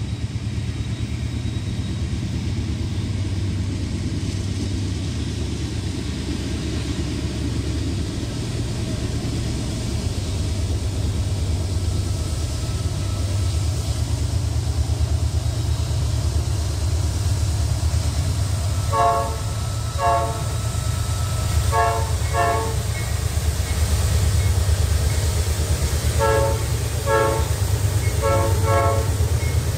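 Norfolk Southern diesel-electric freight locomotives drawing near with a steady low engine drone that grows louder. From a little past halfway the multi-note locomotive horn sounds in short blasts: two, then two more, then four in quick succession near the end.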